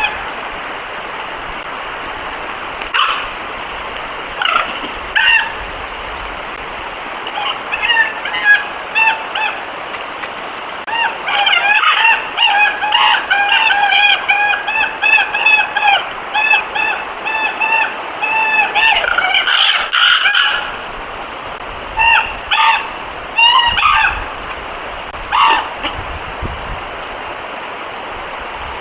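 A flock of geese honking: many short honks overlapping at several pitches. They are scattered at first, run thick for about ten seconds in the middle, then thin out. A steady hiss lies underneath.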